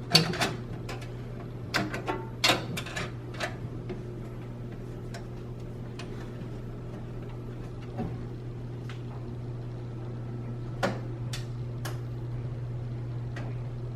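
Scattered light clicks and knocks of hardware being handled and fitted inside a PC case, over a steady low hum. The clicks cluster in the first few seconds and come singly later on.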